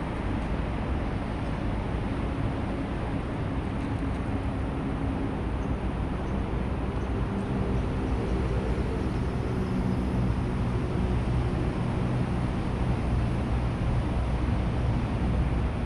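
Steady rumble of road traffic, with the hum of a vehicle engine coming through from a few seconds in.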